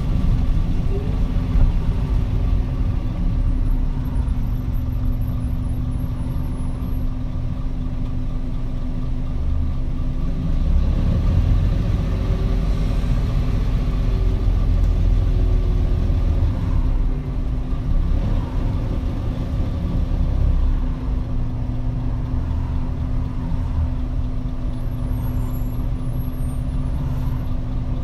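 Diesel engine and road noise of a Nissan Diesel Space Runner RA city bus (PDG-RA273KAN), heard from inside the cabin while it drives between stops. It is a steady low engine drone with rumble that eases and picks up slightly now and then.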